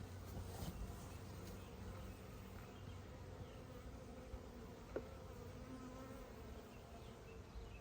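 Honey bees buzzing around an open hive during a frame inspection, a faint wavering drone of many wings, with a single sharp click about five seconds in.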